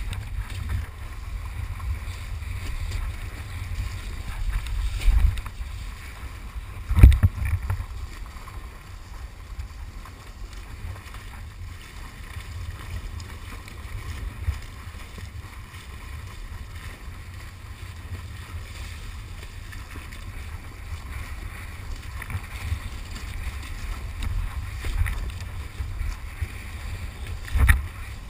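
Kiteboard planing over choppy sea, heard from a pole-mounted action camera: a steady, gusty low rumble of wind and water against the camera, with a loud thump about seven seconds in and another near the end.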